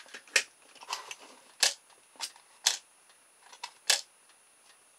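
Magnetic coil-and-magnet rudder actuator snapping the rudder left and right, the magnet clicking against its stop cut from an old CD: about seven sharp clicks at uneven spacing.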